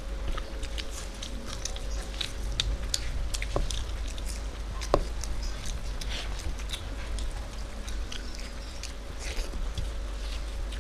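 Close eating sounds: biting into and chewing hot fried beguni (battered eggplant fritters), with many small, irregular crisp clicks and wet smacks.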